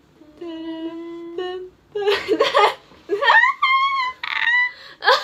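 A young woman hums one held note, then young women squeal and laugh excitedly.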